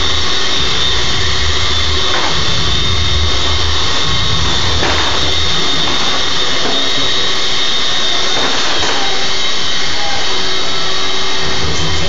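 Vacuum cleaner running loudly and steadily: a rushing airflow with a constant high motor whine.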